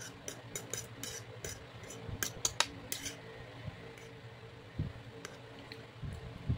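Metal fork clinking and scraping against a plate of noodles: a quick run of sharp clicks over the first three seconds, then a few scattered clicks.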